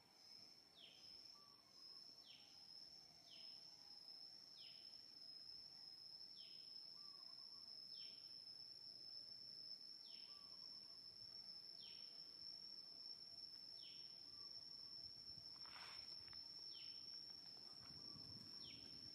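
Faint outdoor ambience: a steady high-pitched insect drone, with a bird repeating a short falling call every second or so.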